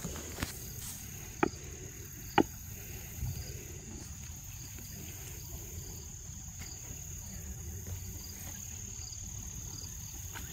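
Insects singing in one steady, high, unbroken tone, with three sharp snaps in the first few seconds.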